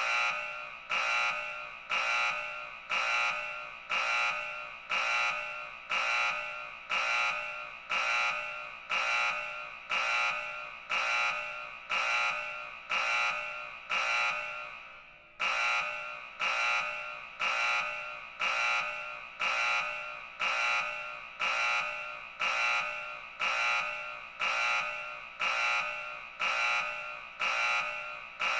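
Emergency Alert System–style alarm tone made up for a fictional country: an electronic beep repeating about once a second, each beep starting loud and fading away, with a brief break about halfway through.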